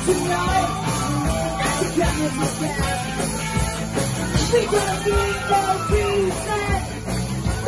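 Punk rock band playing live: electric guitar and drums in a fast, steady groove.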